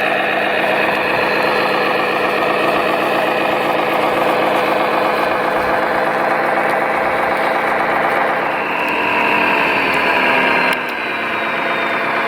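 Radio-controlled model vehicle's engine sound running steadily, with its pitch rising a little about eight and a half seconds in. The sound drops suddenly in level near the end.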